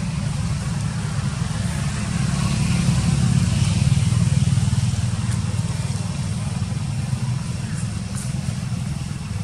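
A motor engine running steadily nearby: a low, evenly pulsing hum with a faint hiss above it, swelling slightly a few seconds in.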